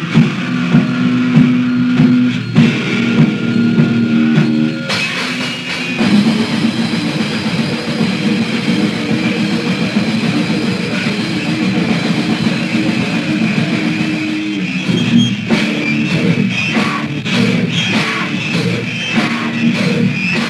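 Hardcore punk band's 1998 demo tape: distorted electric guitar, bass and drum kit playing. A guitar riff over regular drum hits gives way about five seconds in to the full band playing denser, with faster drumming near the end.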